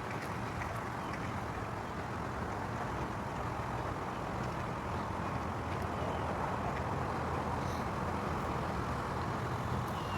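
Steady outdoor background noise, an even rumble and hiss, with a few faint short high chirps scattered through it.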